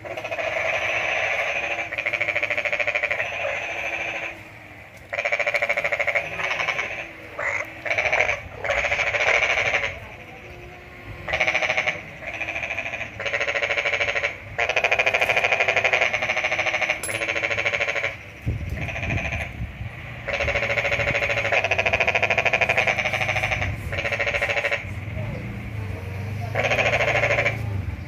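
Rapid pulsed animal calls coming in repeated bouts of one to three seconds with short gaps between them. A low rumble joins in about two-thirds of the way through.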